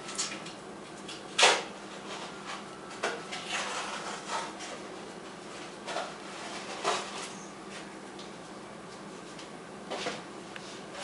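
A few irregular soft knocks and clicks, the loudest about one and a half seconds in, over a faint steady hum.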